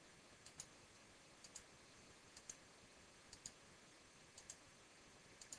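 Faint computer mouse clicks, about one a second, each a quick pair of ticks, as points are clicked one after another.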